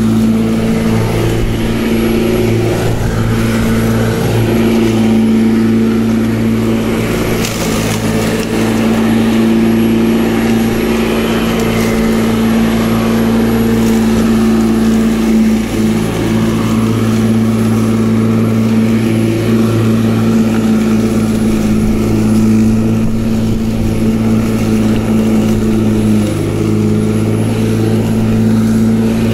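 Black & Decker 42 cm 1800 W corded electric rotary lawnmower running steadily while cutting grass, a constant motor hum. Its pitch dips briefly twice, about halfway through and again near the end.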